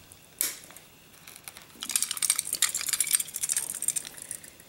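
Steel parts of a Norinco 213 pistol handled during reassembly: one sharp click about half a second in, then a couple of seconds of quick small metallic clicks and scraping as the slide's muzzle end, with its recoil spring and barrel bushing, is worked by hand.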